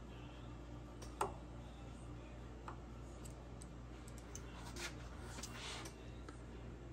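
A few faint clicks and taps of steel dial calipers being set against a rifle barrel's tenon, the sharpest about a second in, over a low steady hum.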